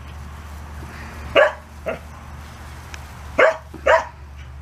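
Pembroke Welsh Corgi barking: four short barks, a pair about a second and a half in (the second one weaker) and another pair about three and a half seconds in.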